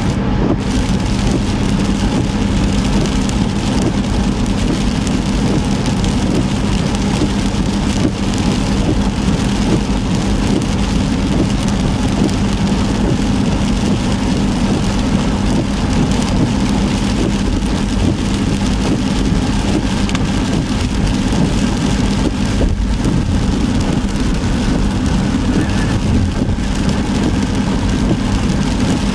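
Heavy rain beating on a car's windshield and body, mixed with the steady noise of the car driving on a wet highway. A steady low drone runs underneath throughout.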